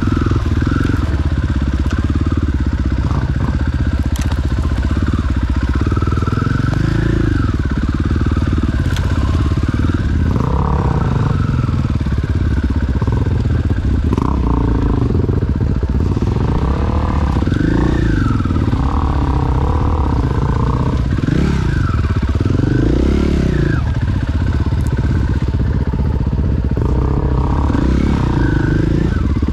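Enduro motorcycle engine being ridden, its pitch rising and falling every second or two as the throttle is opened and closed.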